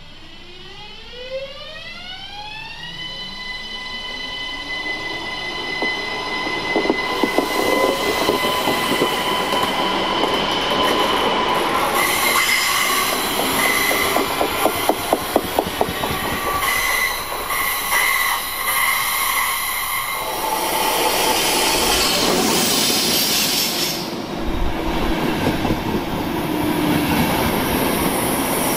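ÖBB Cityjet (Siemens Desiro ML) electric train's traction converters whining, a stack of tones rising in pitch for about three seconds and then holding steady, followed by a rapid run of wheel clicks over rail joints as it passes close by. In the second half a second train, a rake of double-deck passenger coaches, rumbles past.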